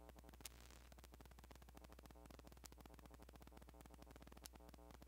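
Near silence: a faint, steady electrical hum with light static, and a tiny click about half a second in.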